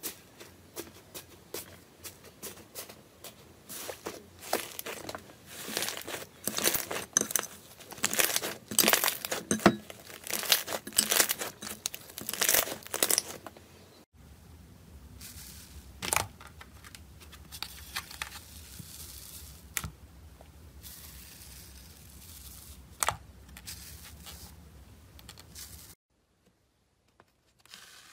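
Slime with a set, cracked top skin being pressed and broken apart by fingers: dense crackling and tearing that is loudest around the middle of the first half. About halfway through it gives way to quieter handling of soft slime over a low hum, with a few sharp pops, then a couple of seconds of silence near the end.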